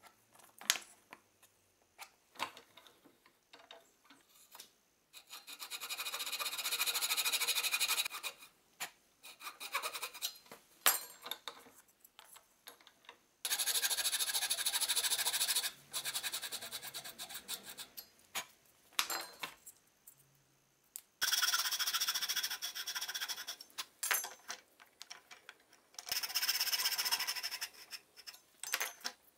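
A thin-bladed handsaw cutting a hardwood block in four stretches of steady sawing, each about two to three seconds long. Small clicks and knocks come in the first few seconds and between the cuts, as tools and wood are handled.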